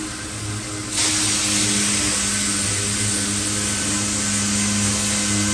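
Pneumatic random orbital sander switched on about a second in, then running steadily with a loud hiss of exhaust air as it sands the paint off a pickup's roof.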